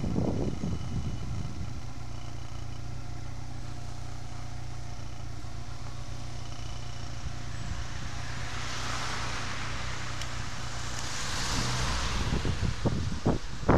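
Motorcycle engine running steadily at low speed, a low even hum, as the bike rolls slowly in traffic. A swell of hiss comes and goes about two-thirds of the way through, and wind buffets the microphone again near the end.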